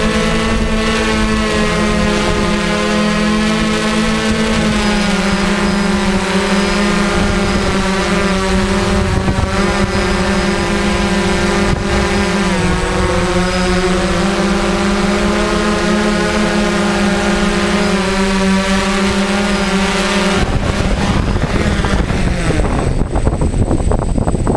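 DJI quadcopter's electric motors and propellers humming steadily in flight, heard from its on-board camera, the pitch shifting a little as it manoeuvres. About four seconds before the end the hum stops as the drone sets down, leaving rough rustling noise.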